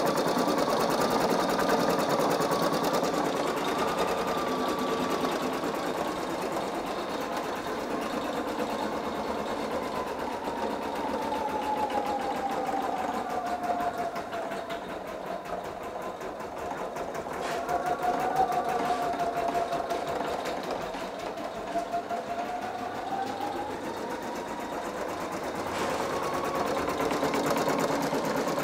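Singer EM9305 embroidery machine stitching out a design, its needle running in a fast, even patter. The motor's whine drops in pitch around the middle and climbs back up near the end as the stitching speed changes.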